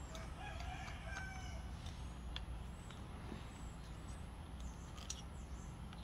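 A rooster crowing once in the background, a call of about a second near the start, with a few light clicks of parts being handled.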